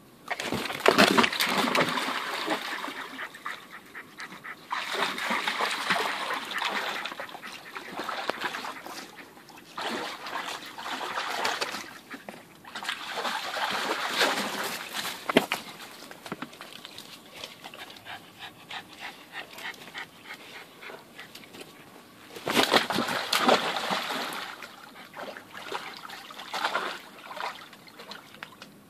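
A dog splashing and pawing in the water of a shallow inflatable paddling pool: repeated bursts of splashing a couple of seconds long, with quieter stretches between.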